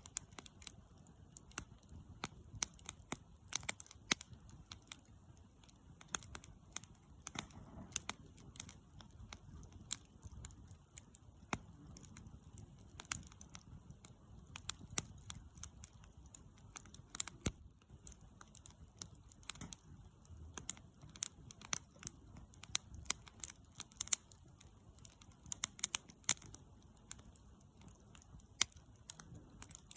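Wood campfire crackling: frequent, irregular sharp pops and snaps over a faint low rumble of the burning fire.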